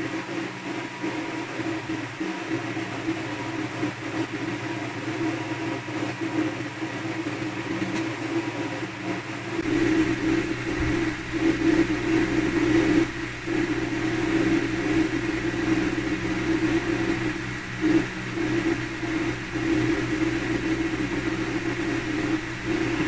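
A steady machine drone with several held tones; a deeper rumble joins about ten seconds in.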